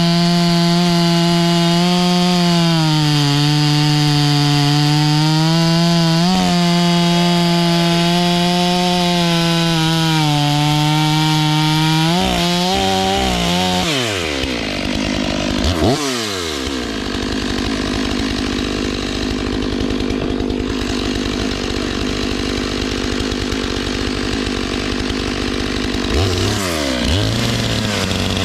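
Chainsaw at high revs cutting wood, its pitch dipping and recovering as the chain bites. About thirteen seconds in, the pitch sweeps away and a rougher, noisier running sound follows. Near the end the engine drops to a low idle and then revs back up.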